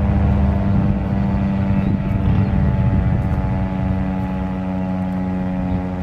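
Federal Signal STH-10A rotating two-tone siren sounding at a steady pitch, its two tones forming a sustained chord.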